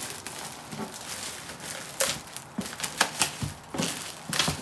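Clear plastic wrap crinkling and tearing as it is pulled off a cardboard shoe box, in irregular crackles with a few sharper rips about two, three and four and a half seconds in.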